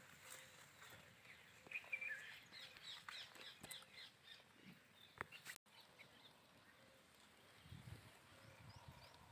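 Faint outdoor ambience with distant birds calling: short chirps and calls scattered through the first half, and a light low rumble of wind near the end.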